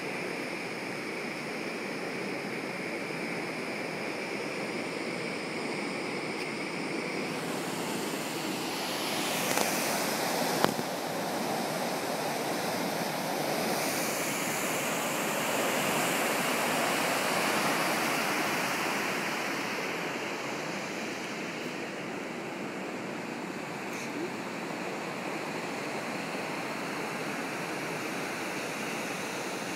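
Steady rushing of a cruise ship's churning wake below the stern, mixed with wind on the open deck. The rush swells for several seconds in the middle, and a single sharp click comes about ten and a half seconds in.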